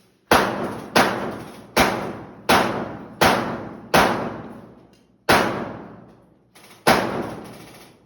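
Airsoft gun fired in single shots, eight sharp bangs about three-quarters of a second apart with a short pause in the middle, each trailing off in a long echo as in a large, hard-walled hall.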